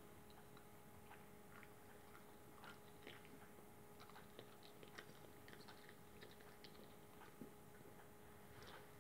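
Faint, irregular wet chewing and small mouth clicks from a Great Dane puppy chewing a marshmallow, over a faint steady hum.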